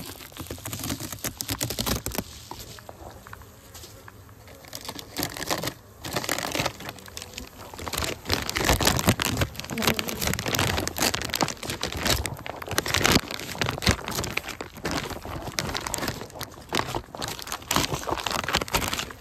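Irregular crinkling and rustling as gloved hands handle a beehive's foil bubble-wrap insulation and cover, with honeybees buzzing from the open hive.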